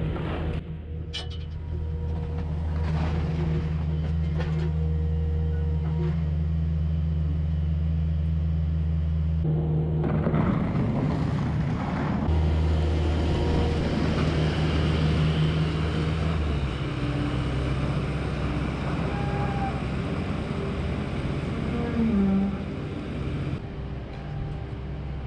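Skid steer engine running steadily, its pitch and load shifting a couple of times as it works.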